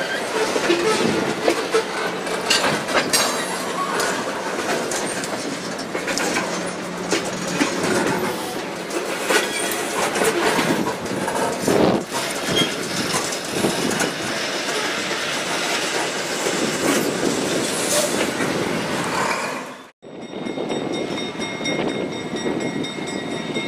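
Freight train of tank cars rolling past over a street grade crossing, the steel wheels giving many sharp clicks and knocks over the rails. Near the end it cuts to a steadier noise with faint high steady tones.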